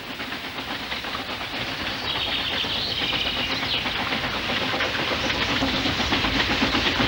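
Narrow-gauge Ffestiniog Railway steam locomotive working its train, quick chuffing exhaust beats over a steady hiss, growing gradually louder.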